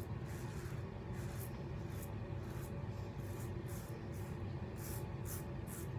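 Adjustable double-edge safety razor scraping through lathered stubble on the chin and neck in short, quick strokes, about two or three a second.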